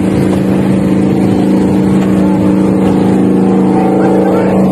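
A fishing boat's engine running steadily, a constant low drone.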